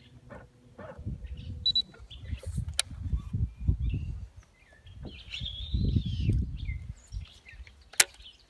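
Low rumbling gusts, like wind on an outdoor microphone, come in two spells, with songbirds chirping and warbling behind them. Two sharp clicks are heard, about three seconds in and near the end.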